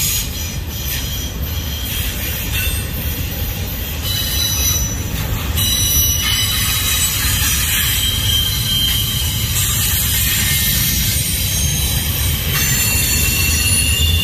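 Freight train's double-stack container cars rolling past with a steady low rumble, and thin high wheel squeals that come and go, more prominent from about halfway through.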